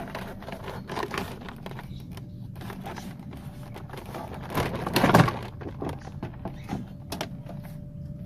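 Plastic interior trim cover on a car door being pried off: scattered clicks and scrapes, with a louder clatter about five seconds in.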